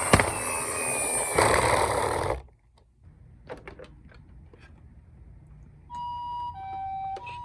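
Several toy ambulance minicar sirens sounding at once, cutting off suddenly about two seconds in, followed by a few light plastic clicks. Near the end a single toy ambulance's electronic two-tone hi-lo siren starts, alternating between a high and a low note about every half second.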